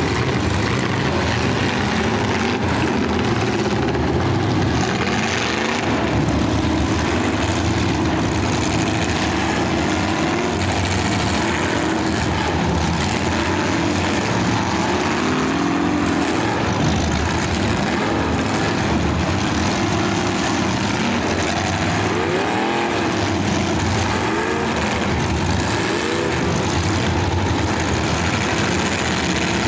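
Engines of full-size demolition derby cars running loudly under load, revving up now and then.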